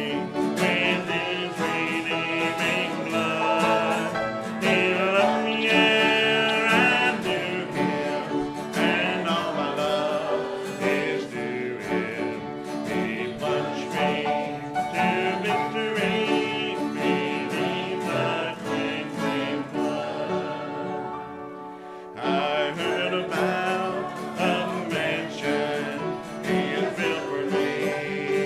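A worship song sung to strummed acoustic guitar. The music eases off briefly about two-thirds of the way through, then comes back in strongly.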